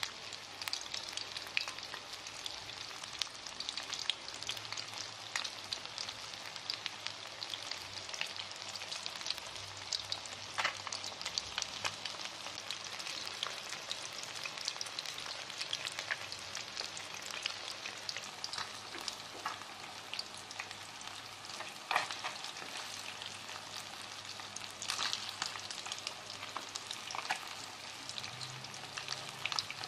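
Breaded fish pieces deep-frying in hot oil in a pan: a steady sizzle crowded with sharp crackles and pops.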